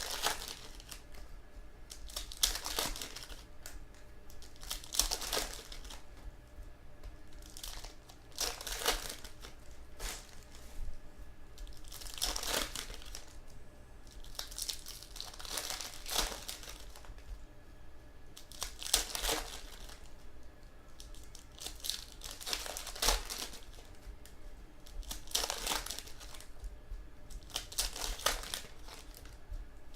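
Crinkling and rustling of thin plastic packaging as trading cards are handled, in short bursts every two to three seconds.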